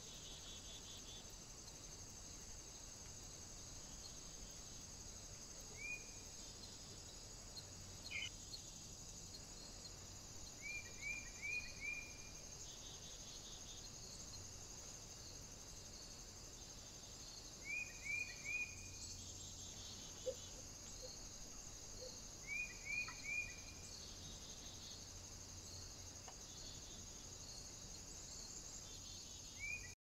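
Faint woodland ambience: a steady high insect chirring, with a small bird's short chirped calls coming in quick runs of three or four every few seconds.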